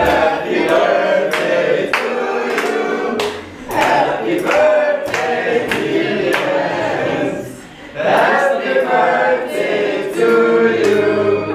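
A mixed group singing a birthday song together, with hands clapping along in time. The singing breaks off briefly about two-thirds of the way through, then starts up again.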